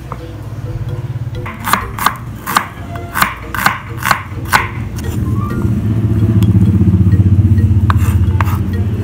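Kitchen knife chopping onions on a wooden cutting board: about eight sharp chops, two or three a second, over background music. From about halfway a louder low, steady rumble takes over.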